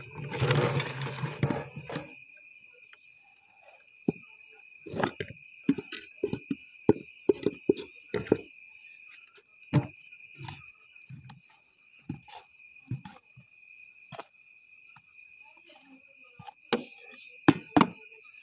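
Crickets chirring steadily, with irregular knocks and scrapes of cooking utensils as stiff maize porridge (ugali) is worked in the pot and scooped into a bucket with a plastic bowl.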